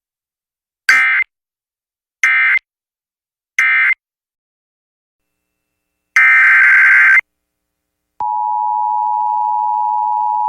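Emergency Alert System data and tones: three short, buzzy SAME end-of-message bursts about a second and a half apart close out the previous warning. A roughly one-second SAME header burst follows, then the steady two-tone EAS attention signal starts about eight seconds in, announcing the next alert.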